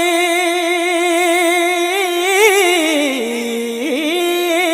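A solo voice singing an Urdu naat unaccompanied, drawing out one long melismatic note with a wavering vibrato. The pitch slides down about three seconds in and climbs back up near the end.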